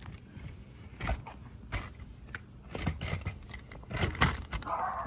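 Collapsible camping rocking chair being pulled open: its metal frame joints click and rattle and the fabric scrapes, with several sharp knocks, the loudest cluster about four seconds in.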